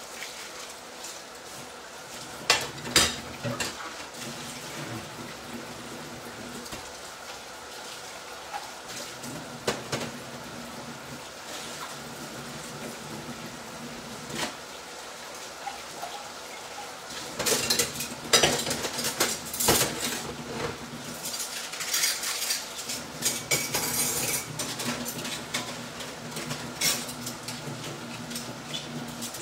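Peas frying in olive oil in a pan, a steady sizzle, with clinks and clatter of dishes and utensils: a few sharp clinks about three seconds in and a longer run of clattering from the middle until near the end.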